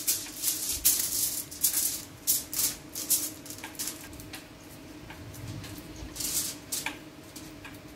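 Aluminium foil crinkling and rustling in short irregular bursts as a gloved hand smears paste over the sheet. The rustling thins out in the middle and picks up again about six seconds in, over a steady low hum.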